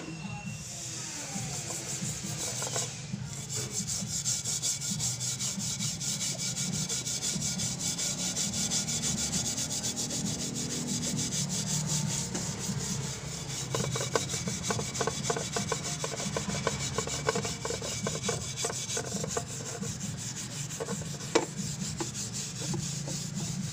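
Steel wool scrubber scouring the upturned underside of a frying pan in quick, continuous back-and-forth strokes, working off burnt-on grime softened by a soaked foam cleaner.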